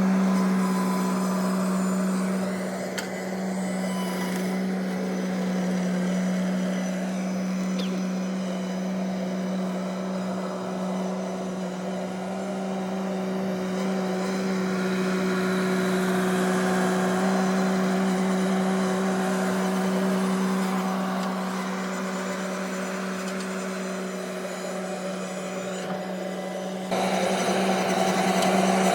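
Bobcat MT100 mini skid steer's engine running steadily under work, a constant hum with a steady pitch. Near the end the sound jumps abruptly louder.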